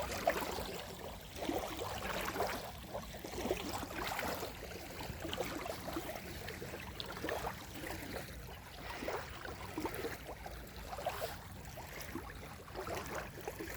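Small waves of the Gulf of Riga lapping at the shore, a steady run of irregular little splashes and gurgles.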